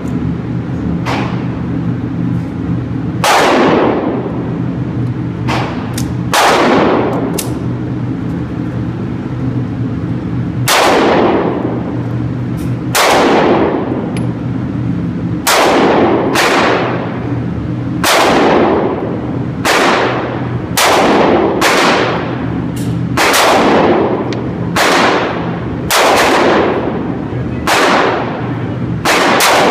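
Gunshots echoing through an indoor shooting range: about twenty sharp reports, irregularly spaced and some in quick pairs, each trailing off in a long echo, over a steady low hum.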